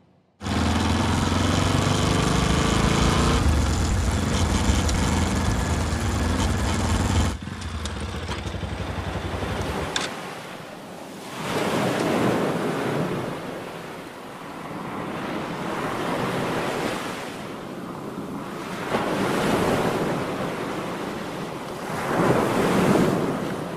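A motorcycle engine running steadily, dropping back about seven seconds in and stopping near ten seconds. Then waves breaking on the shore, each swell of surf rising and falling about every three to four seconds.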